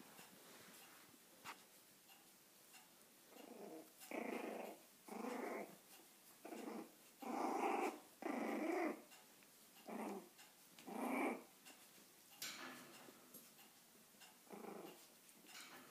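Five-week-old puppies growling in play while they wrestle: a run of about eight short growls in the middle, with fainter ones near the end.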